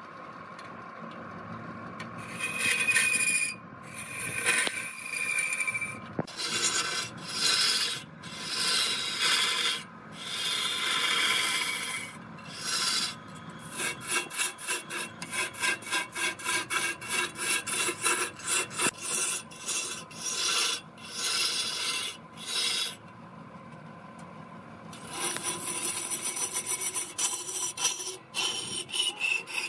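A rag pressed by hand against a large log spinning on a wood lathe, making a rough rasping rub. The rub comes in strokes, quick and rhythmic through the middle, over the lathe's faint steady hum.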